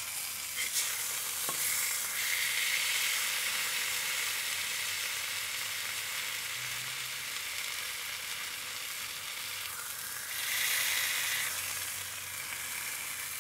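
Teriyaki-glazed smashburger patties sizzling steadily on a hot griddle plate, with a few light clicks of a steel spatula at first. The sizzle swells about two seconds in and again about ten seconds in as the patties are moved and turned.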